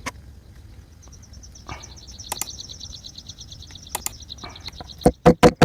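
A high, rapidly pulsing buzzy trill, typical of an insect or bird calling outdoors, starting about a second in and running until near the end, over faint background noise with a few light clicks. Near the end come several loud, sharp knocks in quick succession.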